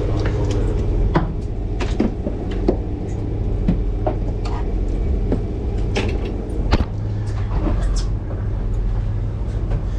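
Steady low hum of a boat's machinery, with scattered sharp clicks and knocks of a fishing rod and gear being handled on the fiberglass deck.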